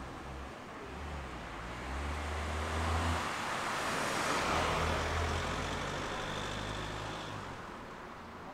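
Cars driving past close by on a city street, with engine hum and tyre noise. The sound swells to a peak about four seconds in and then fades as they drive away.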